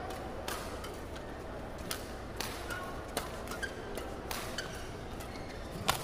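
Badminton rally: sharp racket strikes on the shuttlecock, about one a second, the loudest near the end, with a few short squeaks of shoes on the court, over a steady low hall noise.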